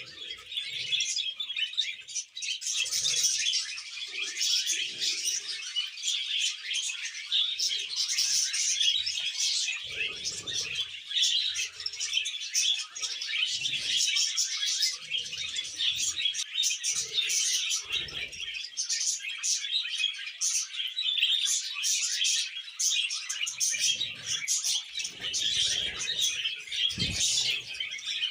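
Budgerigars chattering: a dense, continuous fast twittering and warbling, with a few soft low thuds now and then.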